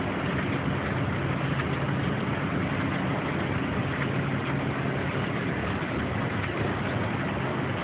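1993 Heidelberg GTOZ 52 two-color offset printing press running: a steady mechanical din with a low hum underneath.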